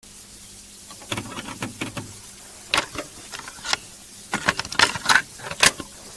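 Hands rolling a ground-beef-filled pancake on a china plate: soft rustling with a scatter of small clicks and taps, busier in the second half, over a steady low hum.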